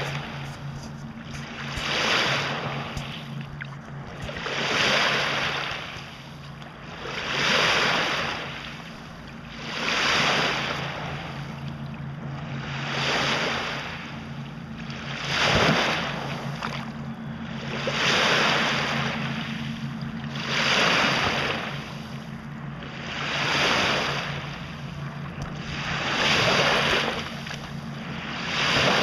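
Small lake waves breaking and washing onto a sandy shore, one wash roughly every two and a half to three seconds, with a steady low hum underneath.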